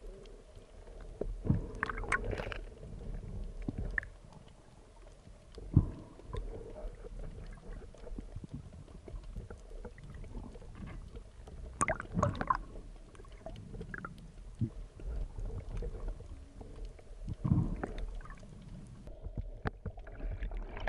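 Underwater sound picked up by a camera on the speargun: a muffled low rumble of moving water with scattered knocks and clicks, and a rush of bubbles near the end.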